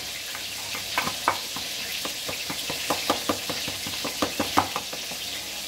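Hot oil sizzling steadily around a frying breaded beef cutlet (milanesa), with frequent small, irregular pops and crackles.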